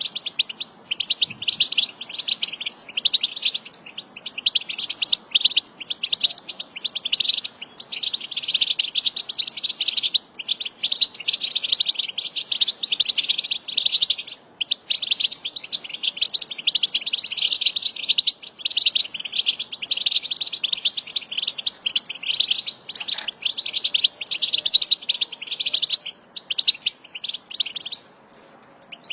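European goldfinch song: a fast, jangling twitter of rapid chirps, almost unbroken, with a few short pauses and a longer lull near the end.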